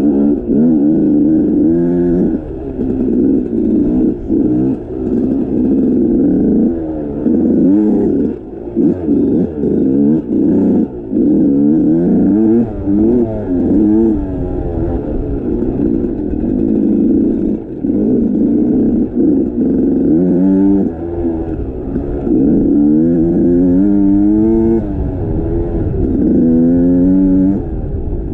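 Motorcycle engine being ridden, its pitch climbing and dropping over and over as the throttle opens and closes and the gears change, with a rumbling low noise underneath.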